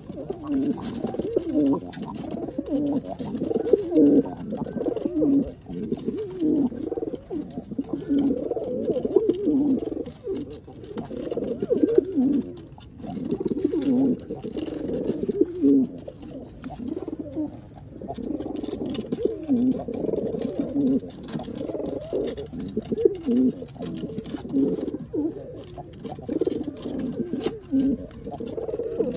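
Domestic pigeons cooing without a break, low repeated coos overlapping one another.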